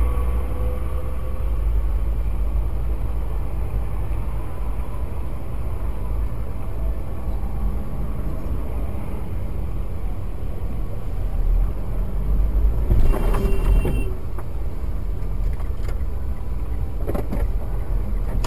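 Low steady rumble of road traffic and an idling car, picked up by a dash camera inside the stopped car, as a bus pulls past close alongside. A brief louder noise comes about two-thirds of the way through.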